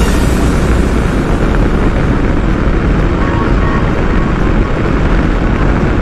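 Triumph Tiger 800 motorcycle ridden at steady road speed, heard mostly as a steady rush of wind on the camera microphone, heaviest in a low rumble.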